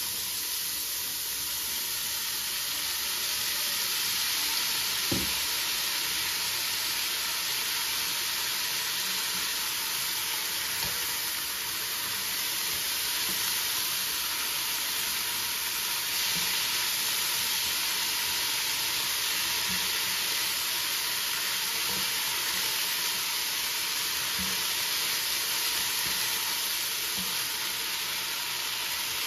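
Broad beans and dill sizzling in a pot, a steady hiss, while a spoon stirs them together with rice, giving a few light knocks against the pot.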